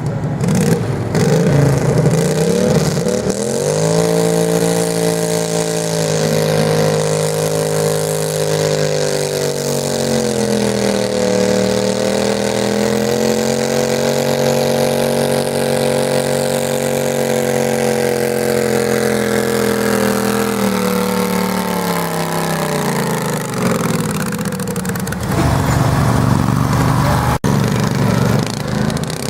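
Garden tractor engine revving up and running at high, steady revs under load while pulling a weighted sled, its pitch dipping briefly midway, then winding down after about twenty seconds. Rough engine rumble follows near the end.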